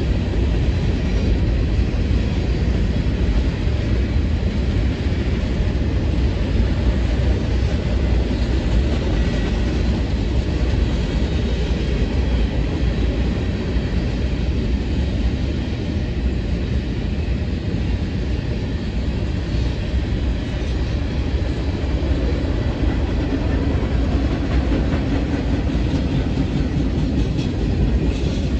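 Union Pacific freight train's cars rolling past, a steady, even rumble of steel wheels on the rails that is heaviest in the low end and never lets up.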